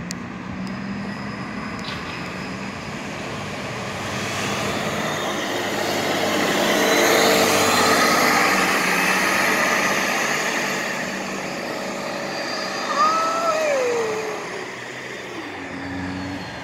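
Articulated city bus approaching and passing close by. Its engine and tyre noise swells to a peak about halfway through, then fades as it pulls away. A short falling squeal comes near the end.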